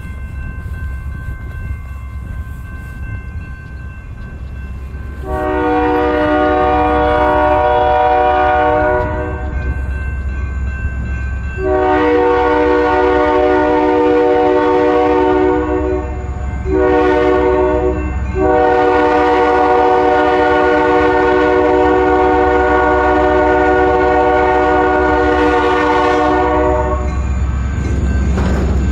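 Freight locomotive air horn sounding the grade-crossing signal: two long blasts, one short, and a final long one held for about eight seconds, over the steady rumble of the moving train.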